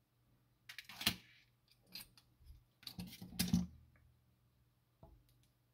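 Clicks and light metallic knocks of a clock movement being worked by hand: a screwdriver on the movement plate and the platform escapement being lifted off it. They come in uneven clusters, the loudest about a second in and around three seconds in, with a single click near the end.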